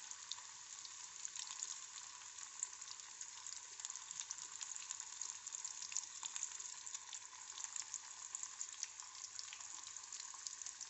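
Oat-coated cheese fingers, freshly put into hot oil, deep-frying in a pan: a steady sizzle full of many small pops and crackles.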